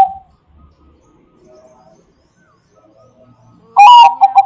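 Zebra dove (Bangkok-type perkutut) cooing. One phrase dies away at the start, and after a pause of about three and a half seconds a new loud phrase begins near the end: a higher opening note followed by a quick run of short, evenly spaced coos.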